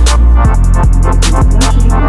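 Background electronic music with a heavy bass line and a steady drum beat.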